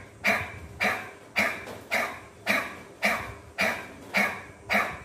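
A man's rapid, forceful 'ha' exhalations through the open mouth, about two a second, each a sharp breathy puff that fades quickly. This is a kapalabhati-style breathing exercise done through the mouth, with the belly pumping the air out.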